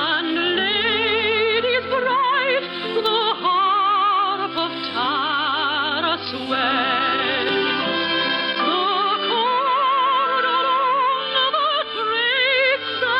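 Operatic-style singing with strong vibrato over an orchestral accompaniment. The sound is narrow and dull, like an old radio broadcast recording.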